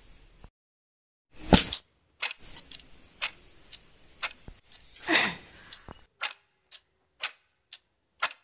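Clock ticking about once a second, with a softer tick between the beats in the last few seconds. A loud sharp hit comes about one and a half seconds in, and a swelling whoosh that falls in pitch comes about five seconds in.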